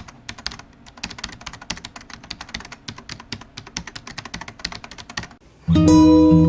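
Rapid, irregular clicking of keyboard typing, several keystrokes a second, which stops about five and a half seconds in. Acoustic guitar music then starts loudly near the end.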